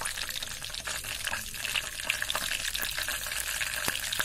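Whole spice seeds (cumin, nigella, fenugreek and mustard seeds) frying in hot oil: a steady sizzle with many small crackling pops as the seeds splutter, the tempering stage of cooking.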